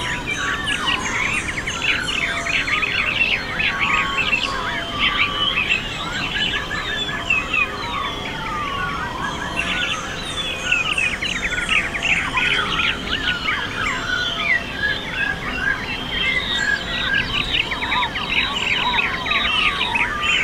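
A chorus of many birds chirping and twittering at once: dense, overlapping short calls and quick rising and falling notes with no pause, over steady low background noise.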